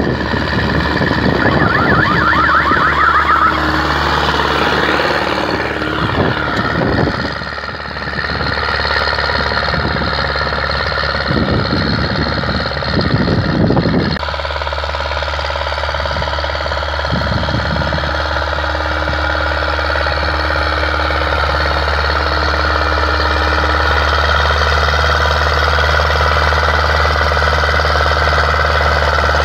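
Ursus C-360 tractor's four-cylinder diesel engine running steadily under load, pulling a spring-tine cultivator through tilled soil.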